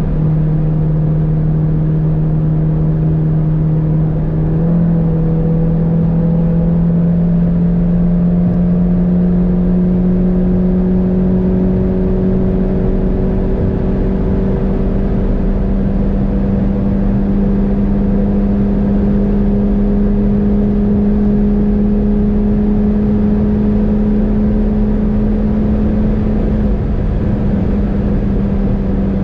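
Tuned VW Golf GTI Clubsport's hybrid-turbo 2.0-litre four-cylinder engine under sustained load, its steady drone climbing slowly in pitch as the car gathers speed. There is a small step up in pitch about five seconds in.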